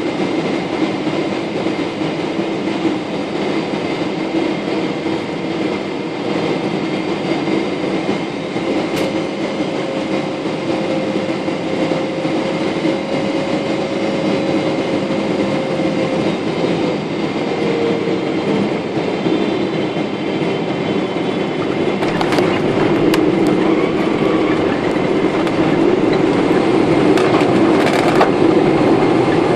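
Cabin noise of a Boeing 777-300ER with GE90 engines on landing: a steady rush of engine and airflow noise with a faint drifting tone. Sharp knocks come once near the start and several times in the last quarter, where the rumble grows louder and deeper.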